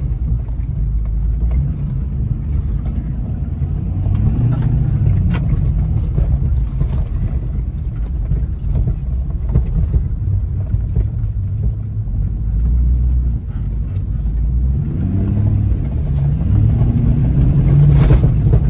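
Ford F-250 Powerstroke V8 turbodiesel running at low speed, heard from inside the cab as a steady low rumble. The engine note rises briefly about four seconds in and climbs again near the end as the truck picks up speed.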